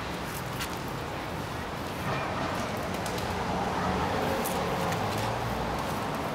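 Outdoor street ambience: a steady low traffic hum with faint murmuring voices, the hum growing a little louder about two seconds in.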